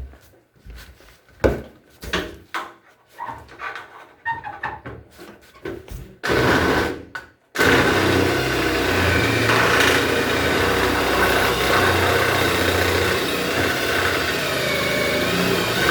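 A series of clicks and knocks, then a motor starts abruptly about six seconds in, cuts out briefly, and runs on steadily with a low hum.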